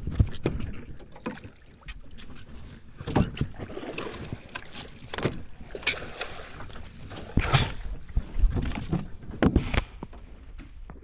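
Small boat on the water: irregular knocks and thumps against the hull, with short noisy bursts between them and no motor running.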